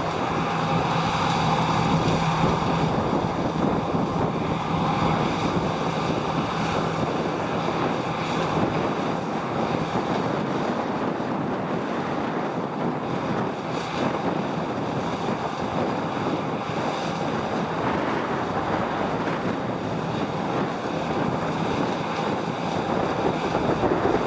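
Farm harvest machinery running steadily, with heavy wind noise on the microphone.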